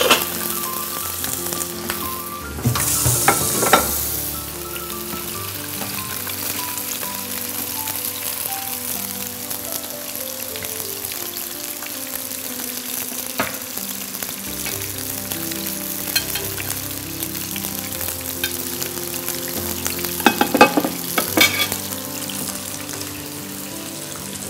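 Chicken thighs and drumsticks sizzling as they fry in hot vegetable oil in a frying pan. The sizzle is a steady hiss that swells a few seconds in, with a few sharp clicks of utensils near the end.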